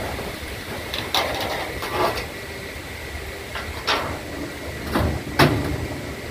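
A few separate knocks and clatters, irregularly spaced, the loudest one near the end, over a low steady background hum.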